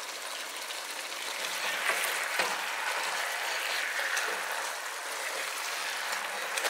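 Chicken pieces sizzling in their own juices in a pot, stirred with a silicone spatula, with a few soft knocks as the pieces are turned.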